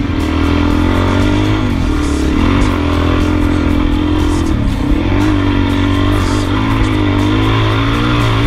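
Adventure motorcycle engine running under load, its pitch dipping and climbing back twice as the throttle is worked.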